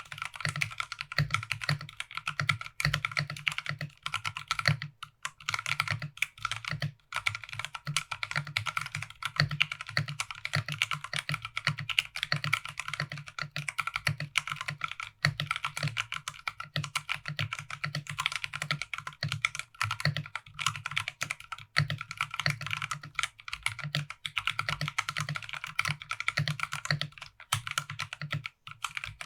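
Continuous fast typing on a Drop ALT HP mechanical keyboard fitted with stock, unlubed Drop Halo Clear tactile switches in an aluminum plate, with stock PBT keycaps. A dense stream of clacks, with a few brief pauses.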